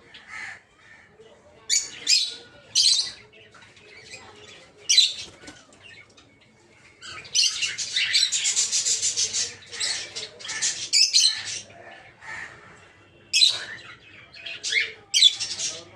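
A flock of peach-faced lovebirds calling: sharp, high-pitched chirps and shrieks come singly at first, then run together into dense, continuous chatter for about four seconds in the middle, then separate calls again near the end.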